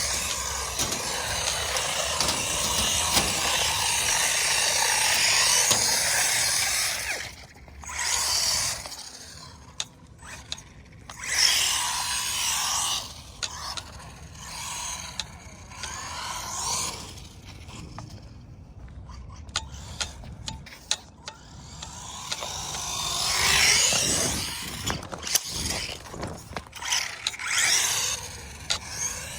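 Traxxas Mini E-Revo VXL RC truck's brushless motor and gears whining as it accelerates. A long run comes first, then a series of shorter surges, with quieter gaps where it coasts or stops.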